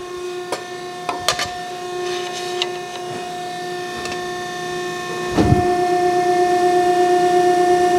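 Hydraulic pump of a CNC press brake running with a steady hum, a few sharp clicks in the first second or two. About five seconds in a thump comes, and after it the hum is louder.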